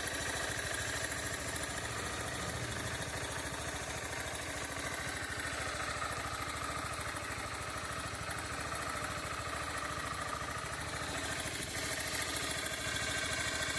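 Honda CG 160's single-cylinder four-stroke engine idling steadily on a new motorcycle, with a noise that the owner says sounds like something loose in the engine.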